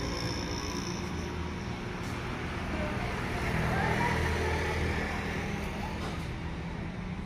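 Motor vehicle engines running, a steady low hum like road traffic, with a few faint sliding tones in the middle.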